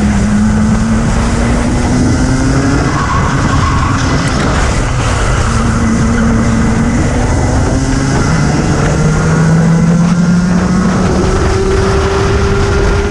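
Racing kart engine heard from onboard: its pitch climbs as the kart accelerates out of a corner, drops off, climbs again, then pulls up steadily along the straight in the second half. A heavy low rush of wind on the microphone runs underneath.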